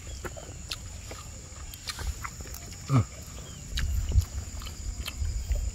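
A person eating close to the microphone: scattered lip-smacking and chewing clicks, with a short falling vocal 'mm' about three seconds in. A faint steady high-pitched tone runs underneath.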